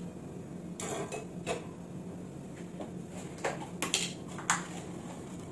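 A series of light clinks and taps of metal kitchen utensils and containers being handled, scattered over a few seconds, with a faint steady low hum underneath.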